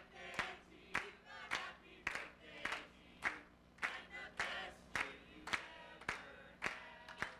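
Church congregation clapping in time, about two claps a second, with raised voices singing and calling out between the claps.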